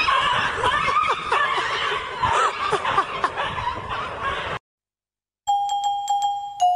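Many short, high, rising-and-falling cries over a dense noisy background for about four and a half seconds, then a sudden cut. After a second's silence a chiming melody of single bell-like notes begins, like a glockenspiel.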